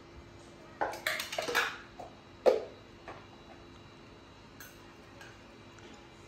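Glass jar and its lid handled on a table: a quick run of clicks and scrapes as the lid is worked open, then a single sharp knock and a smaller one a moment later.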